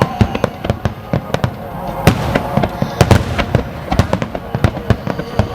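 A dense barrage of aerial fireworks shells bursting, several sharp reports and deep booms a second, with music playing underneath.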